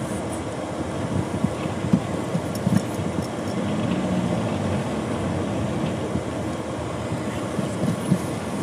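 A car's running noise heard from inside the cabin as it drives slowly: a steady engine and road rumble, with a few brief knocks.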